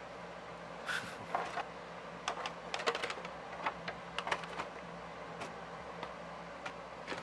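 Scattered light clicks and taps of a plastic action figure and its packaging being handled, several coming in quick runs about two to five seconds in.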